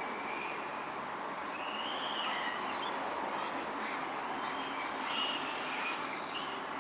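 Birds calling, a scatter of short chirps and whistled notes that bend up and down in pitch, over the steady hum of city traffic.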